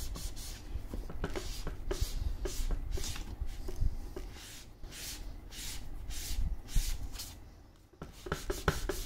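A sponge rubbed back and forth over paper to blend dark blue and grey colour, a run of short scratchy rubbing strokes about two a second, pausing briefly near the end.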